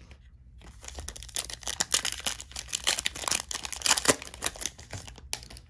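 Plastic trading-card pack wrapper being torn open and crinkled, a dense run of crackles starting about half a second in and lasting about four and a half seconds.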